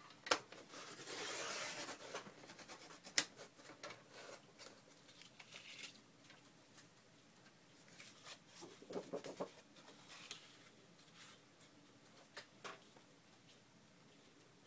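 Sheets of paper being handled on a tabletop: rustling and sliding, with two sharp taps, one just after the start and one about three seconds in, and a brief scuffle about nine seconds in.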